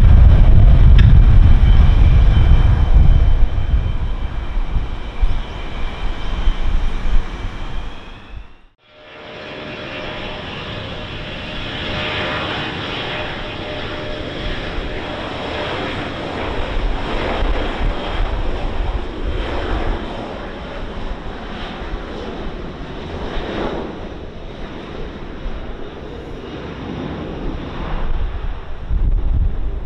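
Boeing KC-135 Stratotanker's four turbofan engines running at high thrust on the takeoff roll: a steady jet roar with a thin whine. There is heavy low rumble in the first several seconds, and the sound drops out abruptly for a moment about nine seconds in before the roar returns.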